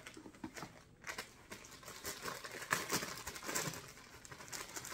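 Clear plastic wrapping crinkling and rustling irregularly as a shoulder strap is unwrapped from it. The handling grows busier about a second in.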